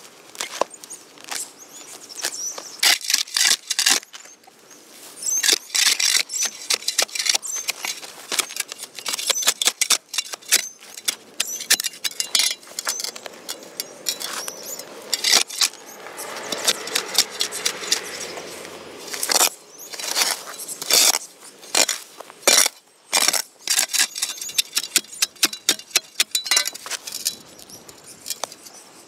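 Gloved hands ripping clumps of grass and weeds out of packed soil by the roots: repeated crackling, tearing rustles with short pauses between pulls.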